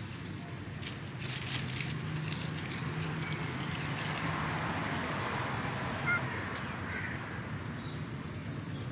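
Steady outdoor background noise: a hiss over a low hum, with a few faint clicks and no meowing. A brief faint chirp comes about six seconds in.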